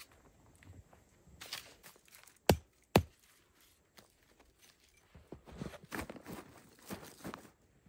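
Two sharp knocks half a second apart, the loudest sounds here, then footsteps crunching in snow, several a second, through the second half.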